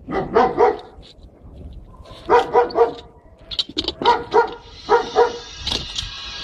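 A dog barking in quick runs of two or three barks, a run every second or two; music comes in near the end.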